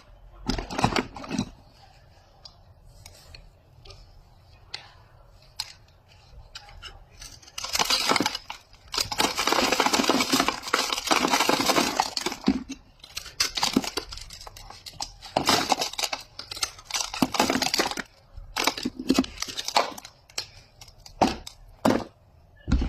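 Paper soap wrapper being torn and crinkled open by hand, in a series of rustling bursts, the longest lasting about three and a half seconds around the middle.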